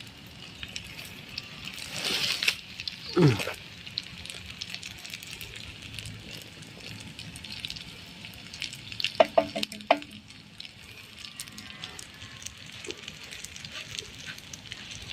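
Food frying in a pan, a steady sizzle with fine crackles. There is a louder burst of noise about two seconds in, a quick falling swoosh just after, and a few short clatters nine to ten seconds in.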